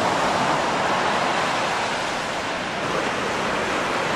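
Ocean surf breaking and washing up a sandy beach, a steady rush of waves.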